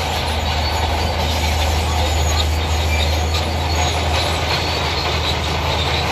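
Bulldozer's diesel engine running steadily under load as it pushes a heap of stones off the bank, with a constant low hum and the scrape and clatter of rock sliding into the water.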